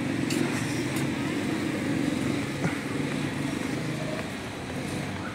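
Street traffic: vehicle engines running with a steady low hum, with a few faint clicks over it.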